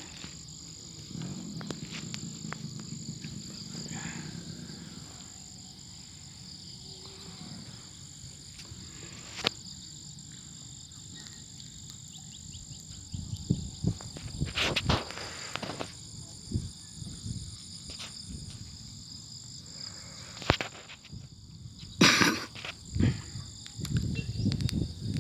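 Insects droning steadily outdoors, a constant high-pitched trill on two tones. Scattered knocks and rustles join in the second half, the loudest about 22 seconds in.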